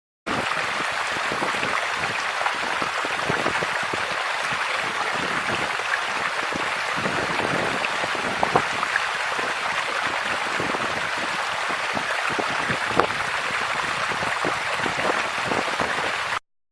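Running water: a steady rushing with small splashes and drips scattered through it, starting and stopping abruptly.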